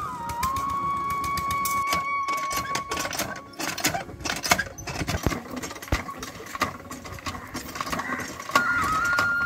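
Flute melody for about three seconds, then a metal hand pump being worked by hand: irregular clanks and knocks of the handle and pump rod. The flute comes back near the end.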